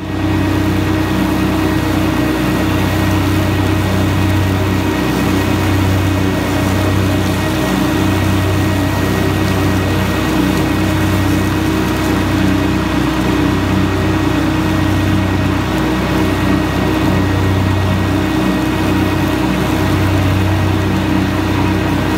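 Kubota compact tractor's diesel engine running steadily at working speed, driving a Land Pride FDR1672 finish mower that is cutting grass. The low hum wavers slowly and regularly.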